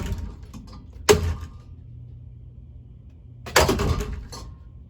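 Spinning ceiling fan's wooden blades being struck, giving loud clattering hits: one about a second in and a burst of several near the end. The fan motor hums low and steady underneath.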